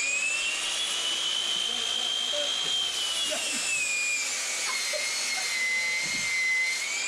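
A small electric motor running with a steady high whine, its pitch sagging a little after the middle and rising again near the end.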